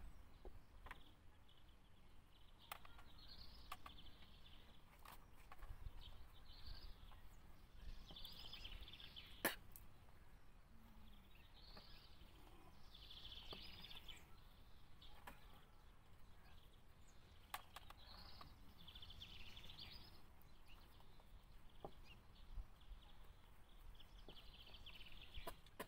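Faint outdoor ambience: a bird singing short phrases every second or two, with a few light clicks and a low rumble underneath.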